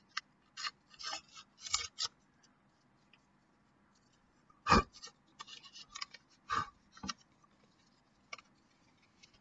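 Paper envelope being handled and opened by hand: a string of short paper rustles and crinkles, with two louder knocks a little past the middle.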